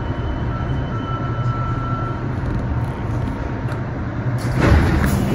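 R62A subway car running along the track: a steady low rumble of wheels and running gear. About four and a half seconds in, a louder burst of wheel-on-rail noise.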